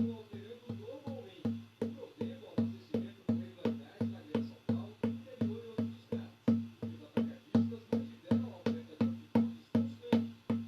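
A drum beaten in a steady, even rhythm, about three strokes a second, each stroke ringing with a low tone.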